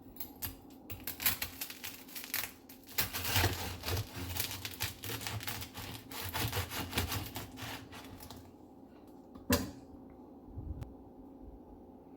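Bread knife sawing through the crisp crust of a no-knead rustic loaf, the crust crackling in a dense run of small cracks. One sharp knock comes near the end.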